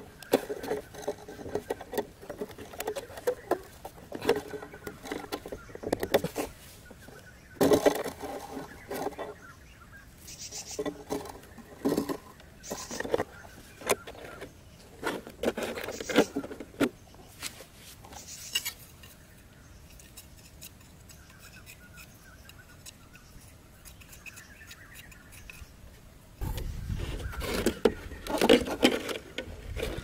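Hands handling a clear plastic-bottle bird trap, with its wire and pliers: irregular clicks, taps and crinkly scrapes of plastic and metal, in clusters with a quieter stretch past the middle. A low rumble joins the handling noise near the end.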